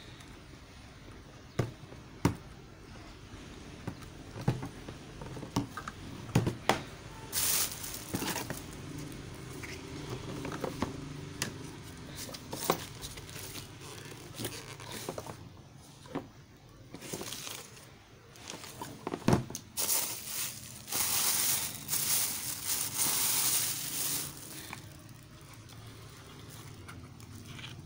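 Plastic packaging crinkling and rustling, with scattered clicks and knocks as a boxed hair dryer, its plug, cord and diffuser attachment are handled. The longest stretch of rustling comes about two-thirds of the way through.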